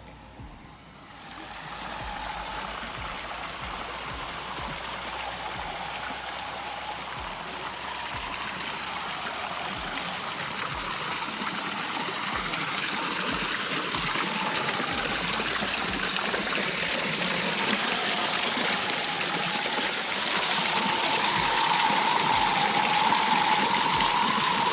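Rushing water, a steady hiss that sets in about a second in and grows steadily louder.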